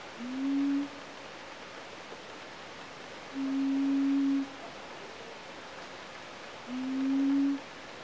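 Three low, pure hooting notes, each about a second long and slightly rising at the start, about three seconds apart.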